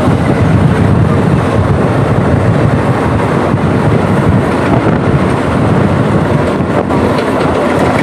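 Double-decker passenger train in motion: a loud, steady running rumble.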